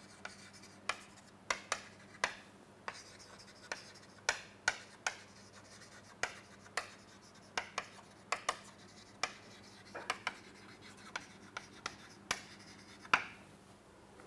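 Chalk writing on a chalkboard: a string of short, sharp taps and scratches at an uneven pace as words are written. A faint steady low hum lies underneath.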